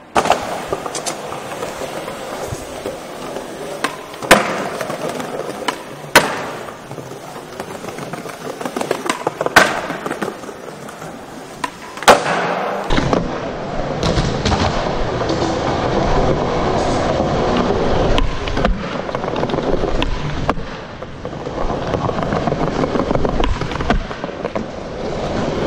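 Skateboard wheels rolling on a smooth mall floor, with four sharp clacks of the board hitting the floor spaced a couple of seconds apart. From about halfway the rolling is heard close up and rumbling through a head-mounted GoPro's microphone.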